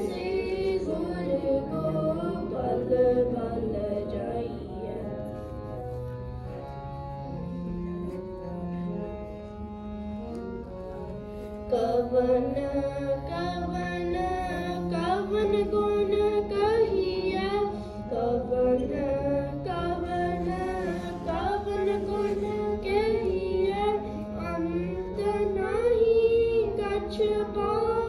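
Sikh kirtan: a devotional hymn sung as a flowing melody over a steady held accompaniment note.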